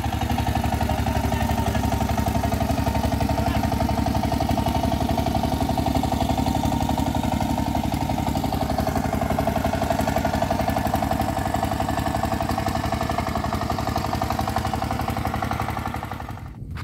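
Inboard engine of a small wooden fishing boat chugging steadily as it motors along the river, with an even, fast pulsing beat. The sound cuts off near the end.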